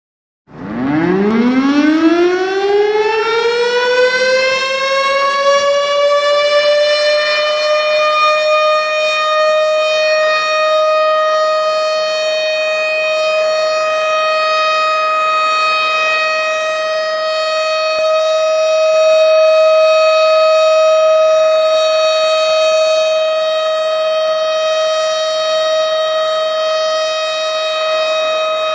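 Ramadan siren sounded to mark the time for breaking the fast and for sahur. It starts about half a second in, winds up in pitch over about four seconds, then holds one long, steady, loud tone.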